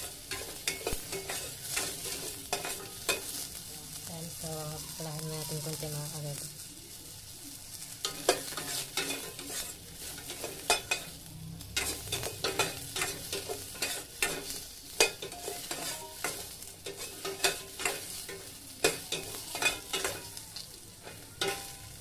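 A utensil repeatedly scraping and knocking against a stainless steel pot as garlic and onions are stirred, with frying oil sizzling underneath. The knocks ease off briefly about six seconds in, then resume.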